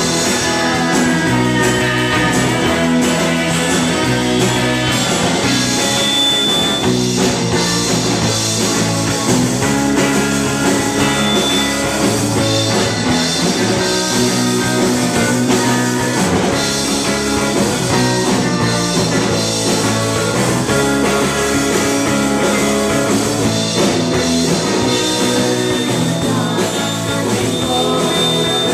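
Live rock band playing a song with electric bass, electric guitar and drum kit, loud and steady.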